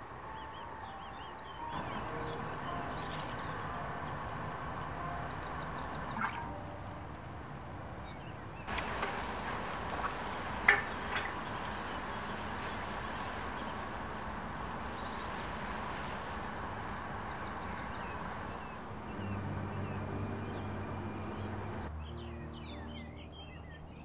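Water sprinkling from a metal watering can's rose onto plants in a flower bed: a steady hiss that starts about two seconds in and stops a few seconds before the end, with a few sharp drip-like clicks and birds chirping.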